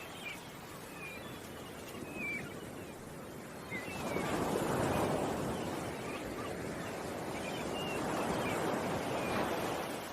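Ocean waves washing in, a soft hiss that swells about four seconds in and again near eight seconds, with short bird chirps scattered over it.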